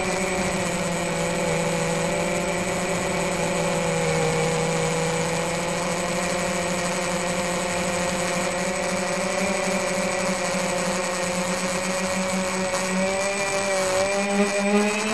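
Whine of a tricopter's three 1510 2200kv brushless motors spinning 5030 three-blade propellers in flight, picked up by the onboard camera. It is a steady hum with a few held tones that sag slightly, then rise in pitch near the end as the throttle goes up.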